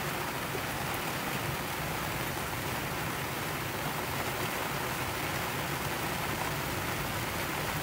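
Heavy tropical rain falling steadily, a constant even hiss without let-up.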